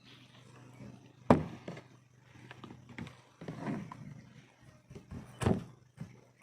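A knife and a fish knocking and scraping on a cutting board as a giant trevally is cleaned. There are two sharp knocks, one about a second in and one near the end, with rougher scraping between them.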